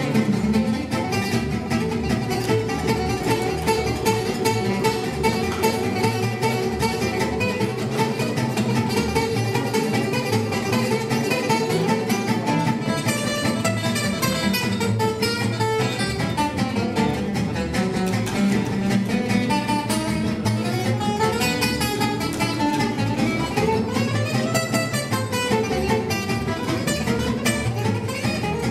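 Live gypsy jazz: a gypsy-jazz acoustic guitar picks quick melodic runs over a plucked double bass. The runs rise and fall most clearly in the last third.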